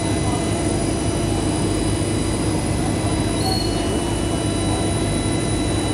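Steady, even machine drone: a constant low hum with several thin, high, steady tones running over it.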